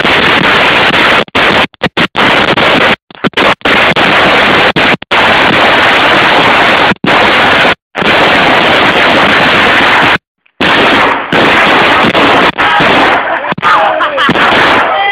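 Firecrackers going off in a rapid, continuous barrage, loud enough to overload the recording, which cuts out briefly many times. Voices call out near the end.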